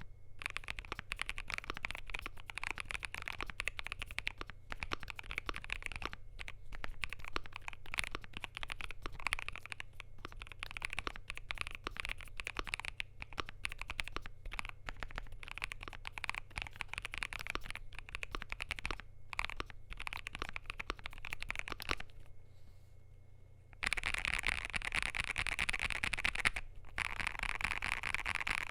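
Typing on a Zuoya LMK81 mechanical keyboard with lubed, filmed Vertex V1 switches on a polycarbonate plate, under AKKO MDA keycaps: a continuous run of quick keystrokes. The keystrokes stop for under two seconds near the end, then resume faster and louder.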